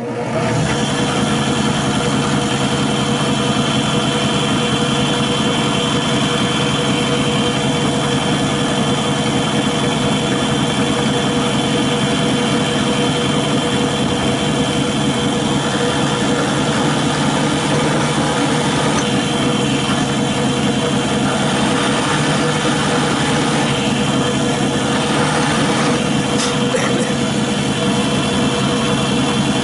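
Bench drill press motor running steadily with a constant hum and whine while its bit bores a small mast hole into a wooden model ship hull.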